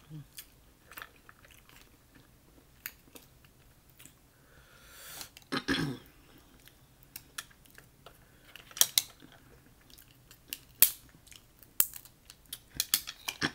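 Close-up eating sounds: cooked mussel shells clicking as they are pried apart by hand, with chewing in between. A longer swelling noise builds to a louder crack about five to six seconds in.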